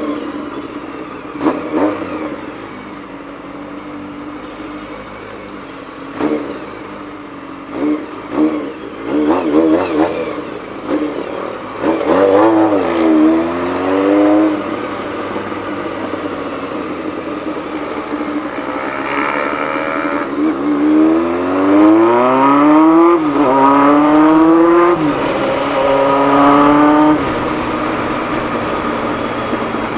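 Honda CBX 750 motorcycle's inline-four engine: a few short throttle blips, then it pulls up through the gears, the pitch climbing and dropping back at each shift, before settling to a steadier drone near the end.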